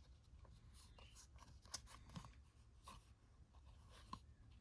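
Faint handling of trading cards: cards sliding and flicking against each other as a pack is leafed through, with a few soft clicks.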